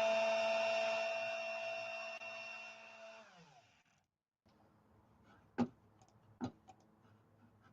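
CNC router spindle spinning down after an emergency stop: its steady whine fades, drops in pitch and dies out about three and a half seconds in. Two sharp clicks follow in the quiet a couple of seconds later.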